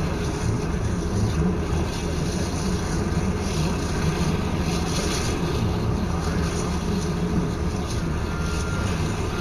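Steady low engine rumble heard from inside a vehicle's cab, with a faint short high tone near the end.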